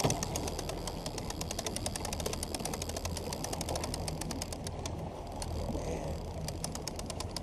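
Fishing reel clicking rapidly as line runs through its ratchet, the clicks thinning briefly a little past the middle, over the low, steady hum of the boat's engine.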